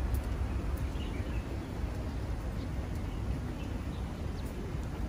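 Outdoor ambience: a steady low rumble with faint scattered ticks and a few faint chirps above it.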